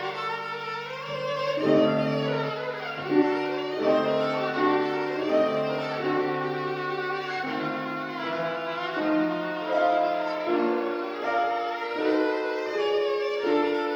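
Solo violin playing a melody of held and moving notes over piano accompaniment, in a classical recital piece.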